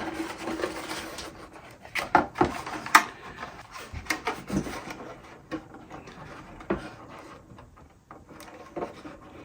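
Plastic zip ties being threaded through drilled holes in a clear polycarbonate RC car body: scattered sharp clicks and rubbing of plastic on plastic, loudest in the first few seconds.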